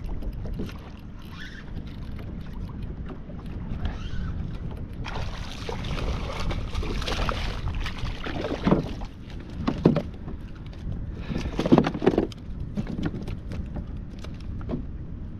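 Handling noises aboard a fishing kayak over a steady low rumble. Midway there is a few seconds of rushing, water-like noise, then several sharp knocks.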